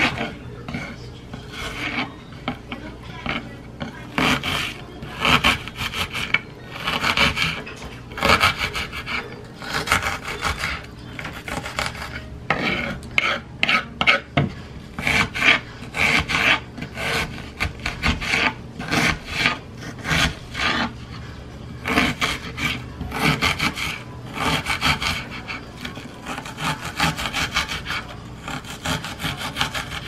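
Kitchen knife dicing an onion on a wooden cutting board: short strokes in quick, irregular runs as the blade slices through the onion and meets the board.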